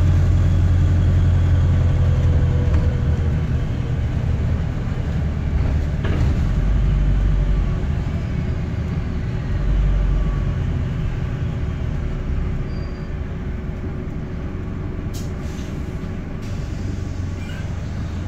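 Diesel double-decker bus, a Wright StreetDeck, heard from inside on the upper deck while driving: a heavy low engine drone that slowly gets quieter, with a few sharp clicks near the end. The bus has a blowing (leaking) exhaust.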